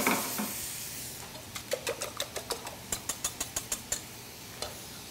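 Wire whisk beating eggs in a stainless steel bowl: a quick run of metallic clicks, about six a second, as the whisk strikes the bowl, stopping about four seconds in with one last click. A faint steady sizzle of frying runs underneath.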